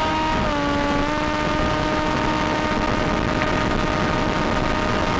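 Blade Theory Type W race wing's brushless electric motor and propeller in flight, picked up by the onboard FPV camera and recorded through the goggles' DVR: a steady high hum that drops slightly in pitch about half a second in, over a constant hiss.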